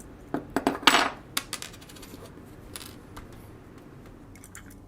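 Small metal parts clinking and tapping: the washer and lock ring of a guitar pedal's input jack are being fitted into the metal enclosure. A quick cluster of sharp clicks comes in the first second and a half, the loudest about a second in and ringing briefly, then a few fainter taps.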